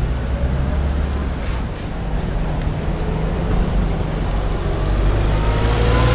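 Busy city street traffic noise heard from a bicycle, with the steady low hum of a double-decker bus engine running close alongside, growing louder near the end.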